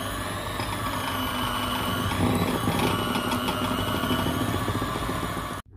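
Electric hand mixer running at a steady speed, its beaters creaming butter in a glass bowl, with a constant motor whine; it is switched off abruptly near the end.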